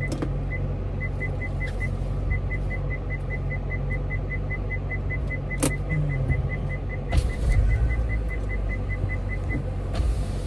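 Car engine idling with the air conditioning running, heard inside the cabin. Over it runs a quick, even electronic ticking at one pitch, about three a second, which stops near the end, with a few scattered clicks and knocks.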